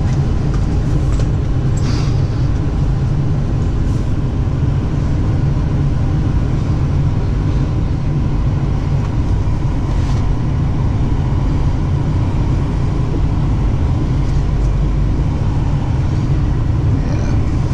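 Steady low rumble of a Ford Super Duty pickup heard from inside its cab as it rolls slowly along a gravel drive, with a few light clicks.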